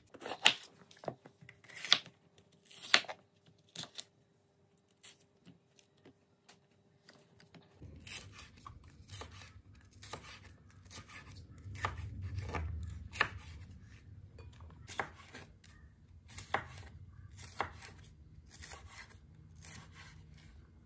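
Chef's knife slicing bell peppers on a bamboo cutting board, the blade knocking on the board in irregular strokes. A few sharp knocks come in the first four seconds. From about eight seconds in there is a denser run of cuts, about one or two a second, over a low hum.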